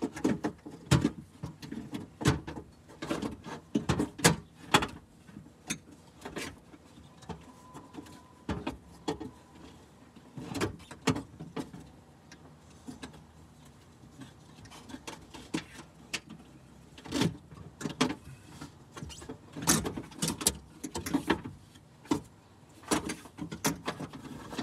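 Irregular knocks, clicks and rattles of a new window regulator and its electric motor being handled and lined up inside a Mitsubishi Montero's metal door shell. The motor itself is not running.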